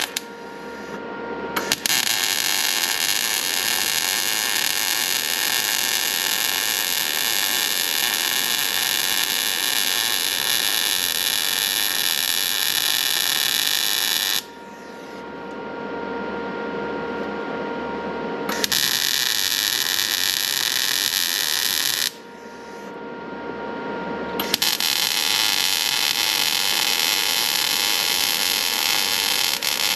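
Electric arc welding: the arc crackles and hisses steadily in three long runs, the first about twelve seconds, then a short one and a longer one near the end. Between the runs the arc stops, leaving a quieter steady hum.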